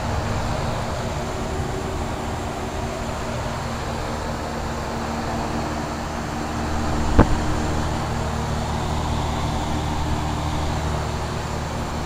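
1983 General Electric Executive Weathertron heat pump outdoor unit running in cool mode: a steady hum from the condenser fan and compressor, with most of the noise coming from the fan motor. A single sharp knock about seven seconds in.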